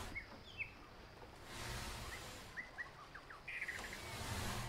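Faint forest ambience of small birds chirping, with short scattered chirps and a brief chittering run partway through. Two soft, noisy whooshes about a second long rise under them, one in the middle and one near the end.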